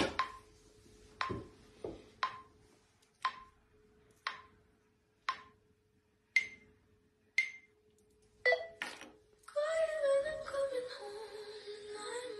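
A series of short, sharp pings about once a second, each with a brief ringing tone, over a faint steady hum. Near the end, music comes in.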